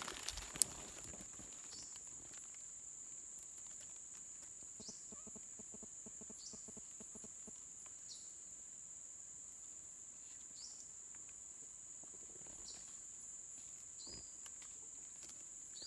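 Insects buzzing steadily at a high pitch, with short falling chirps every second or two and one sharp click just after the start.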